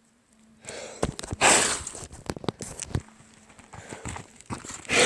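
Someone moving about by a campfire: irregular footstep scuffs and small knocks, with a louder rushing noise about a second and a half in and again near the end.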